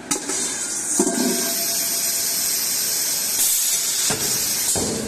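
Laser welding machine for cookware giving a loud, steady high hiss, broken by a few short knocks about one second in and again near the end.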